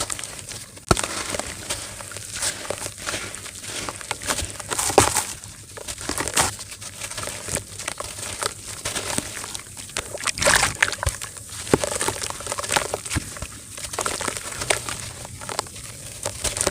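Clumps of dirt crumbling and crunching: a string of irregular crackles and short crunches, with louder cracks about five seconds in and a cluster of them around ten seconds in.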